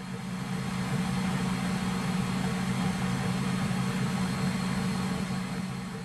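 Bosch stand mixer's motor running steadily, its beaters turning under the closed lid to mix a batter of freshly ground whole wheat flour, water, yeast and honey, with a steady hum.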